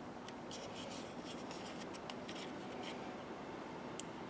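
Faint small clicks and scratching from handling a car's plastic card key, its shell open and circuit board exposed, with one sharper click near the end.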